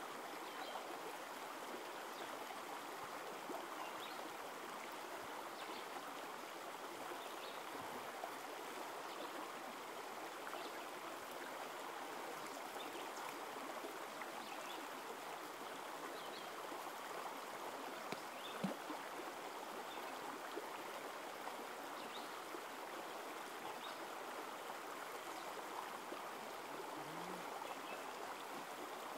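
Small creek running steadily over rocks, an even rush of water. One short knock about two-thirds of the way through.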